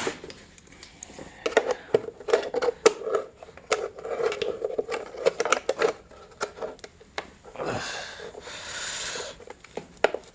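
Engine packaging being cut and unwrapped by hand: scraping, crinkling and clicking, with a longer ripping sound about eight seconds in.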